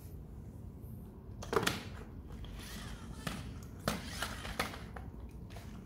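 Hard plastic toy car knocking and clattering on a tiled floor, several sharp knocks, the loudest about a second and a half in.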